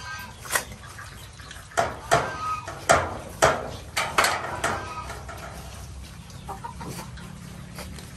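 Short, sharp calls from farm animals in a pen with piglets and a chicken: about seven loud calls in the first five seconds, then fainter calling.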